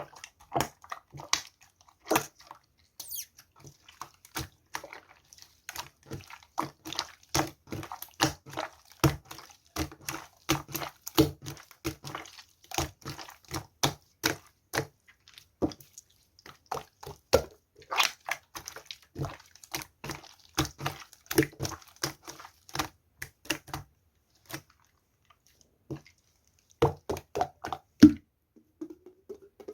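Slime being pressed and worked by hand, giving a dense, irregular run of small wet pops and clicks, several a second. The pops stop for about two seconds near the end, then resume with a short rising squeak.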